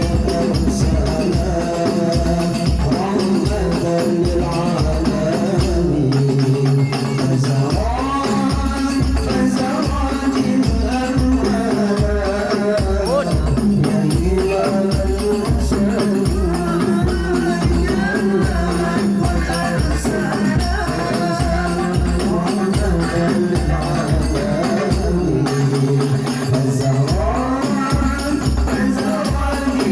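Hadroh ensemble playing: rebana frame drums beat a steady, even rhythm with jingling rattle-like percussion, under male voices singing an ornamented Islamic devotional melody.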